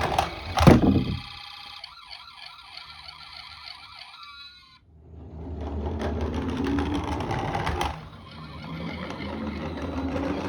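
A sharp knock, then a fast-warbling electronic siren for about four seconds that cuts off suddenly. After a short pause comes a steady rolling rumble, typical of a die-cast toy car's wheels running down a ramp.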